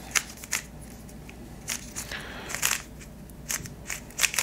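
Moyu YS3 M 3x3 plastic speedcube being turned by hand: irregular clicks and clacks as the layers snap through their turns, some in quick pairs. The cube is freshly lubricated and being worked in.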